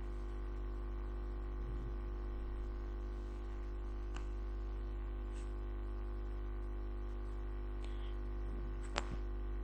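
Steady electrical mains hum, with a few faint clicks and one sharper click near the end.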